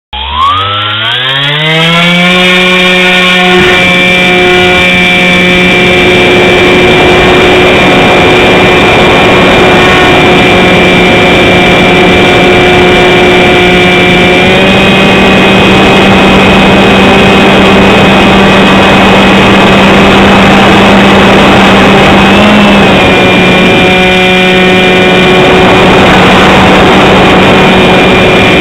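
Radio-controlled model plane's motor and propeller heard from a camera on its wing: it spins up with a rising whine over the first two seconds, then runs at a steady pitch under wind noise, stepping up slightly about halfway through and wavering briefly later.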